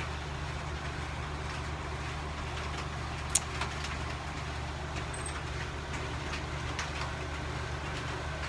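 Soft rain falling as a steady hiss over a constant low mechanical hum, with a single sharp click about three and a half seconds in.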